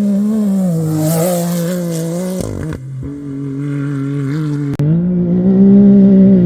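Off-road race vehicle engine running hard, its pitch dipping and rising, with abrupt breaks about two and a half and about five seconds in.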